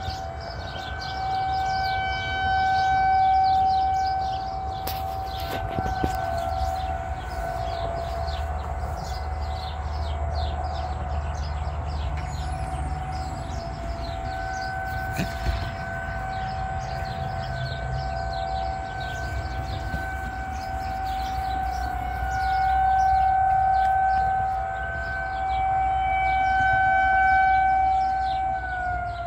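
Federal Signal 2001-SRNB rotating electromechanical outdoor warning siren sounding a steady single-tone alert for a severe thunderstorm warning. The loudness swells and fades slowly as the siren turns. Near the end the pitch starts to fall as it begins to wind down.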